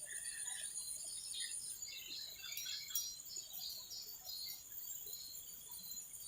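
Outdoor wildlife ambience: insects keep up a steady high-pitched drone while birds give many short, scattered chirps.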